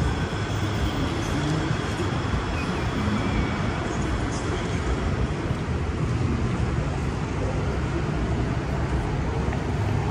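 Steady city street noise with passing road traffic.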